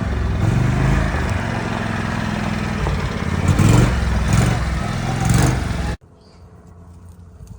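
John Deere Gator utility vehicle's engine running as it drives, surging a few times. It cuts off abruptly about six seconds in, leaving only faint outdoor background.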